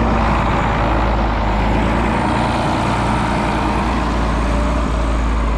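A John Deere 7520 tractor's diesel engine running steadily.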